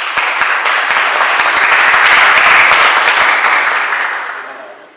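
Audience applauding: a dense patter of clapping that builds to its loudest about halfway through and dies away near the end.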